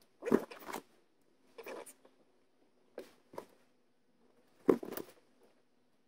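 Short rustles and clicks of hand work on small wiring: a rocker switch, its wire connectors and a pair of crimping pliers being handled, about six times. The loudest come near the start and about three-quarters of the way in.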